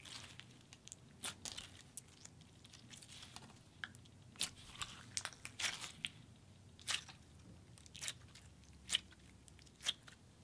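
Handling of Crayola's pink clear glitter slime, which has a stiff, putty-like texture: the hands stretch, press and squeeze it, making irregular soft sticky clicks and small pops, a few a second.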